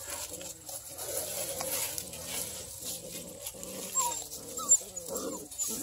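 Redbone coonhound puppies whining and making low wavering grumbles as they play, with a few short high yips about four seconds in.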